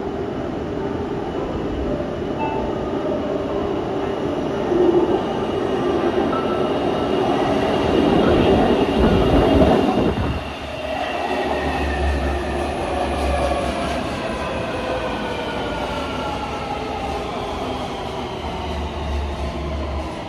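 Taipei Metro Bannan line train arriving at an underground station. Its rumble grows as it comes out of the tunnel and is loudest about ten seconds in, when the cars reach the platform. Then a whine falls steadily in pitch as the train slows.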